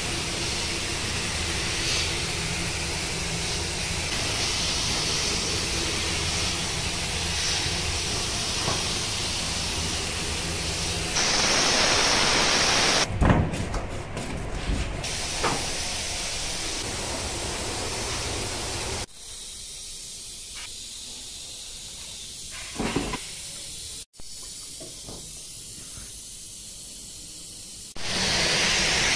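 Gravity-feed paint spray gun hissing steadily as compressed air sprays paint onto a car's body panels. It cuts off abruptly a few times, with a quieter stretch in the second half and a few knocks.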